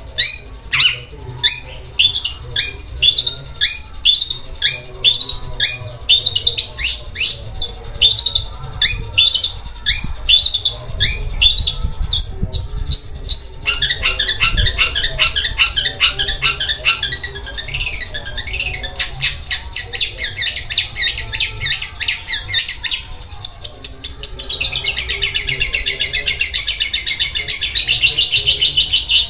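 Caged long-tailed shrike singing continuously with harsh, rough notes like a sewing machine: a run of sharp rising notes about two a second, turning into a faster rattling stream about halfway through and into a dense buzzing trill in the last five seconds.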